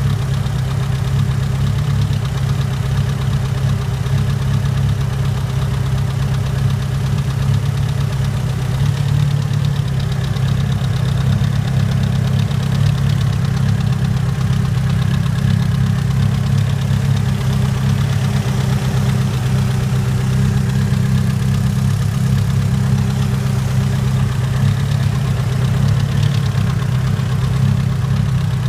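Mitsubishi Lancer Evolution IX's turbocharged 2.0-litre four-cylinder engine idling steadily with a repeating mechanical noise that shows up only after a few miles of driving, which the owner cannot place as valve tick or rod knock.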